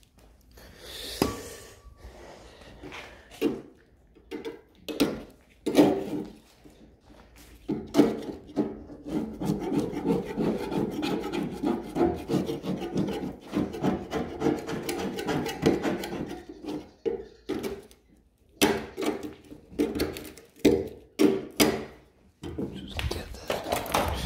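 Old body filler being scraped off the steel panel of a car door in short rasping strokes. The strokes are scattered at first, come fast and close together for several seconds in the middle, pause briefly, then pick up again.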